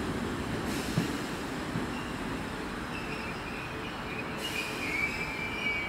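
Merseyrail electric multiple-unit train moving slowly through the station: a low rumble with a single knock about a second in, then a thin high-pitched squeal from the train that sets in about halfway and rises toward the end.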